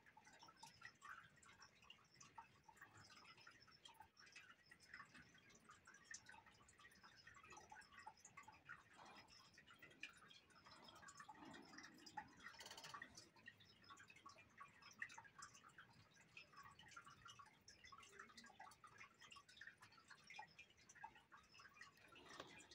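Near silence, with faint, irregular small scratches and ticks of colouring on paper.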